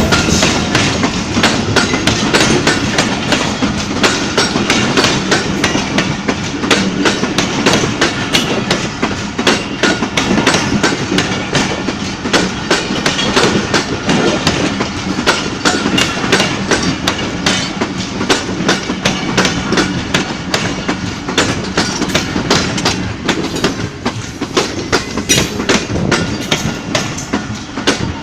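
Pakistan Express passenger coaches rolling past close by, their wheels crunching and clattering over the rail joints in a steady run of sharp clicks over a continuous rumble.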